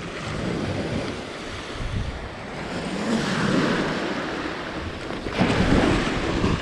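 Small waves breaking and washing up on a sandy beach, with wind on the microphone. Near the end comes the loudest rush of surf and splashing, as a released striped bass thrashes in a breaking wave.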